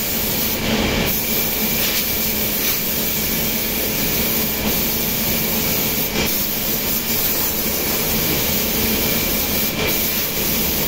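Circular knitting machines running: a loud, steady mechanical din with a constant hum, broken by short bursts of hiss about a second in, about six seconds in and near the end.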